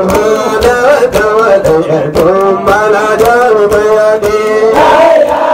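A man sings a devotional chant through a microphone over a steady percussion beat, his melody sliding and ornamented. Near the end, more voices come in chanting together.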